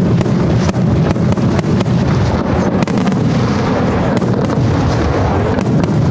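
Spanish-style aerial fireworks display going off: a continuous rumble of shell bursts overlaid with many rapid, sharp cracks.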